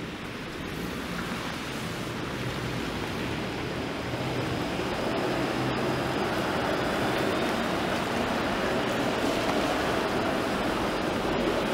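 Wet-road traffic: tyres hissing on rain-soaked pavement, growing louder in the second half as a large vehicle passes close by.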